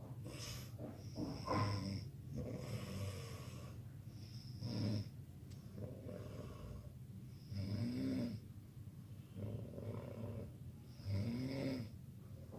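A sleeping person snoring, four snores about three seconds apart.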